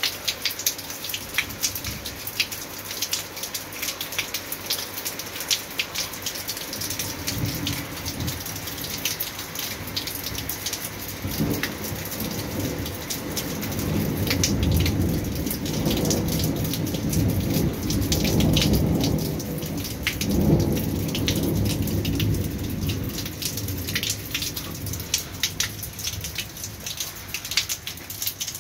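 Heavy rain falling, with many close drops ticking, and a long low roll of thunder that builds from about seven seconds in, is loudest past the middle, and fades near the end.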